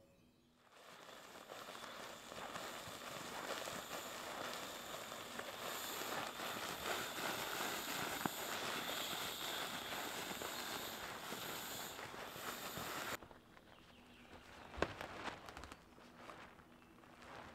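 Continuous crinkling and rustling of an inflatable sleeping pad's fabric as it is folded and rolled up, starting about a second in and stopping abruptly partway through. After it, a few light knocks and rustles.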